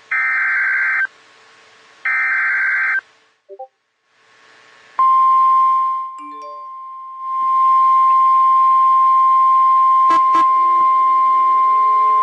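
Emergency Alert System signal from a NOAA Weather Radio broadcast. It starts with two shrill, buzzing SAME digital header bursts, each about a second long with a second's gap between them. About five seconds in, the steady single-pitch 1050 Hz weather radio warning alarm tone begins and holds, dipping briefly once, with a couple of clicks about ten seconds in.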